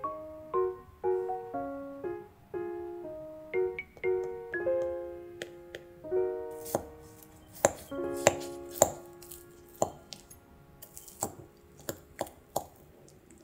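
Gentle piano-like music with clear, decaying notes. From about halfway, a spoon breaks into the flaky pastry crust of a baked herring and pumpkin pot pie, giving a run of crisp crackles and clicks.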